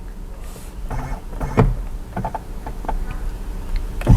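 Scattered light mechanical clicks and knocks from handling in a car interior while the steering column is being adjusted, the loudest knock about a second and a half in.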